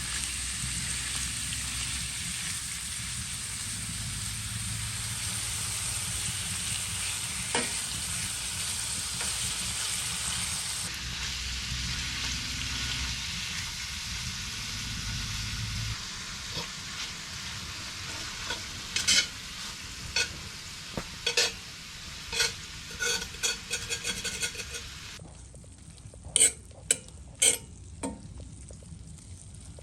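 Meat and vegetables sizzling in a hot frying pan. From about halfway a run of sharp clacks and taps follows as the food is stirred with a utensil against the pan.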